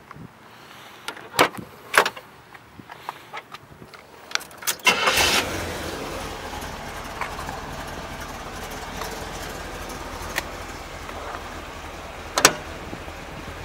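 Clicks and knocks of handling the car, then a 1971 Chevrolet Corvette's V8 starts about five seconds in and settles into a steady idle, with one sharp knock near the end.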